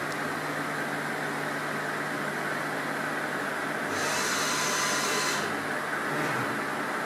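Maho MH 700 C CNC milling machine running with a steady hum while its table traverses, with a burst of high hiss about four seconds in that lasts a second and a half.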